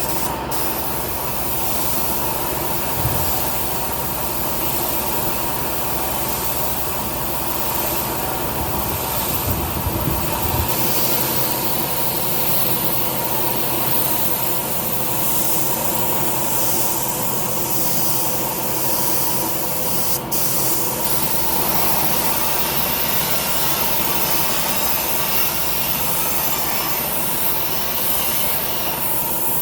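Compressed-air spray gun hissing steadily, with a faint steady machine tone underneath.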